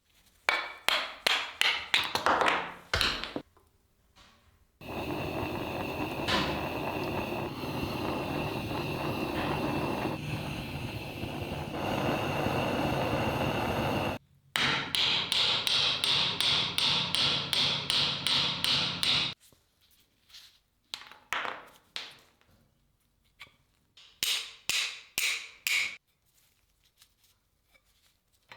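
Quick back-and-forth scraping strokes on the rusty steel of a knife blade, about three to four a second, broken by a stretch of about ten seconds of steady noise and then a few slower, separate strokes.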